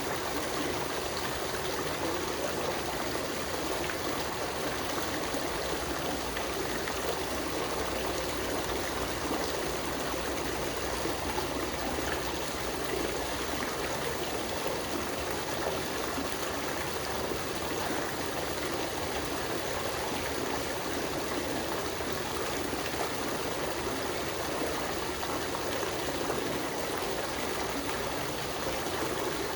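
Water fountain splashing and trickling steadily.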